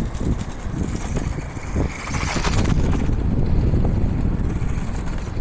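A vintage Tomy F1 toy car, converted to a brushless RC motor, running outdoors, with heavy low wind rumble on the microphone. A brief hissing burst comes about two seconds in.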